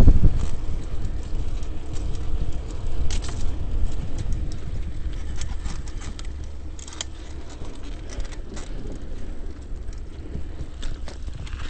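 Bicycle riding along a paved path: a steady low rumble of wind on the microphone and tyre noise, with scattered rattling clicks from the moving bike.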